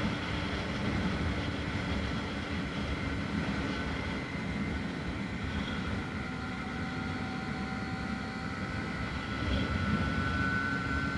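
Yamaha FZ250 Phazer's 249 cc inline-four motorcycle engine running steadily.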